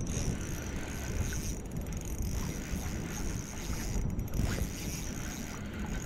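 Steady rushing of river water mixed with wind buffeting the microphone.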